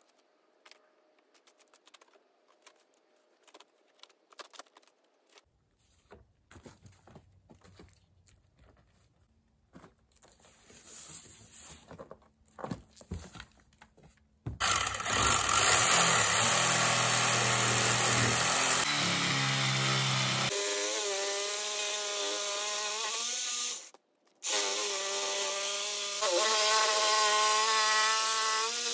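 Scattered light knocks and handling of plywood sheets, then about halfway in a hand-held electric power saw starts and runs, cutting through plywood, its motor pitch wavering under load. It stops for a moment near the end and starts again.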